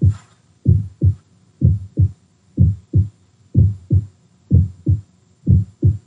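Recording of normal heart sounds: steady lub-dub pairs, S1 as the mitral and tricuspid valves close, then S2 as the aortic and pulmonic valves close, about one pair a second. Nothing extra is heard between the beats.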